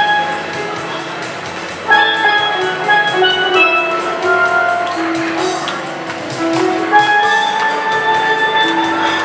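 Steelpan played with mallets: a melody of quick, bell-like struck notes that ring briefly, one after another at an even pace.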